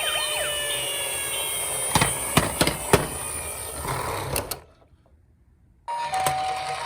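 Toy emergency vehicle's electronic siren trails off, then a small motor whirs with a high whine and a few sharp knocks about two to three seconds in, and stops suddenly. After a second of silence a new electronic tone sequence, two alternating pitches, starts near the end.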